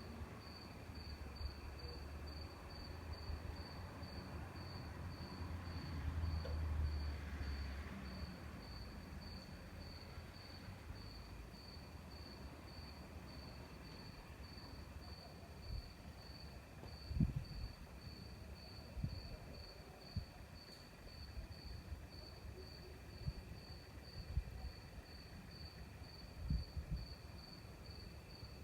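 A cricket chirping steadily in an even rhythm, about two high chirps a second, over a fainter insect hum. A low rumble swells and fades about six to eight seconds in, and low thumps come now and then in the second half, the loudest of them about seventeen and twenty-six seconds in.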